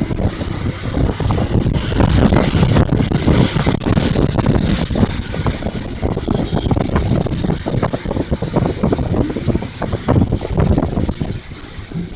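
Wind buffeting a phone microphone: a loud, irregular low rumble with constant gusty crackle, over a steady rushing noise. It is loudest a couple of seconds in.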